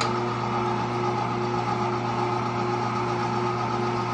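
Cabela's Carnivore #22 electric meat grinder running steadily under load as it grinds cooked chicken giblets, a constant motor hum.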